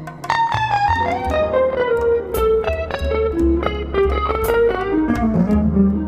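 Music: an instrumental break in a song, a guitar playing a melodic line that steps down in pitch over a low bass.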